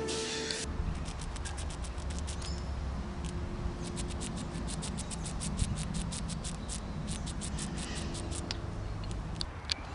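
A squirrel making a rapid run of sharp clicks, about nine a second, in three bursts with short pauses between them, over a low steady rumble.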